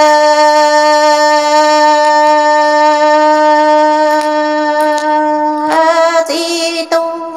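A woman singing Hmong kwv txiaj (sung poetry) unaccompanied: one long note held steady for more than five seconds, then the voice moves into shorter, wavering ornamented notes near the end.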